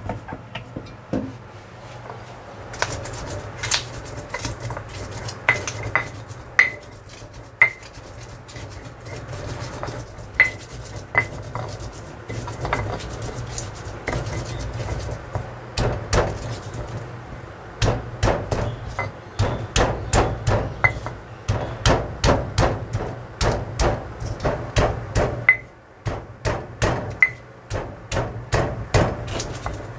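Hand-worked kitchen utensil striking again and again as chilies and spices are prepared by hand: scattered knocks at first, some with a short ring, then a fast run of about three strikes a second from a little past halfway.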